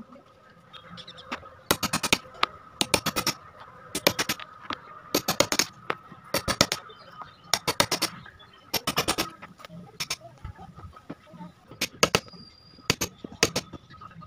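Hammer tapping a prying tool to drive out old staples and tacks from a wooden sofa frame: sharp knocks in quick groups of three to five, about once a second, with a pause of a couple of seconds before the last few. A faint steady high tone runs underneath.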